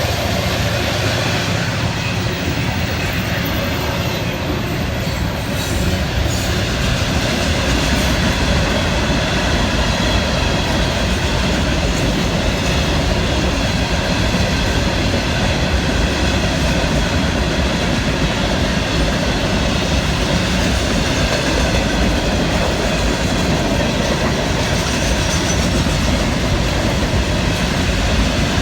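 Florida East Coast Railway freight train rolling past at close range, a steady loud rumble of wheels on the rails with clickety-clack over the rail joints and some wheel squeal.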